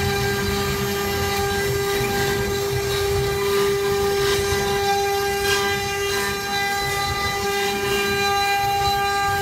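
CNC router spindle running under load as its cutter carves a wooden coffin panel: a steady whine made of several even tones over the rough rasping of wood being cut and chips being thrown.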